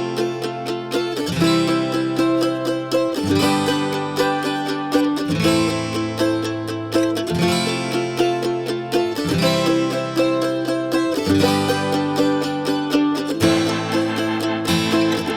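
Instrumental background music led by a plucked-string instrument, over a low bass note that changes about every two seconds.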